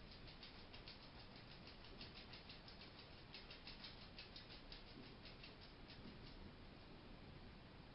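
Hedgehog making a rapid run of faint, short clicks, about six a second, stopping about six seconds in. This is the sneeze-like noise the owner first feared meant illness and later took as a sign that the hog is happy.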